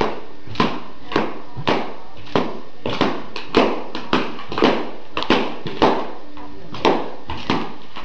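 Balloons being popped by a dog in quick succession: a string of short, sharp bangs, one every half second or so.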